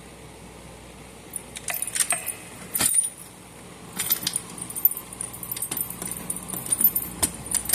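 Small metal hardware clinking and rattling in an irregular run of sharp clicks and jingles, starting about a second in, over a steady low hum.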